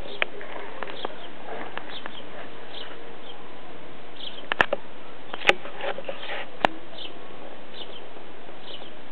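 Outdoor ambience with a steady hiss and short high chirping calls repeating about once a second. A few sharp clicks come through, the three loudest about halfway through.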